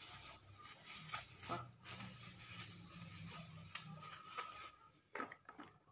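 Thin plastic shopping bag rustling and crinkling in irregular bursts as hands open it and take produce out.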